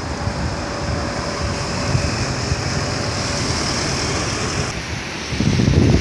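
A box truck driving past on the road, with steady engine and tyre noise. About five seconds in, this gives way to gusts of wind buffeting the microphone, a loud uneven low rumble.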